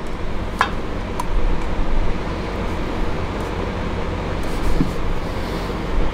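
Steady low mechanical hum, with a couple of light clicks about half a second and a second in.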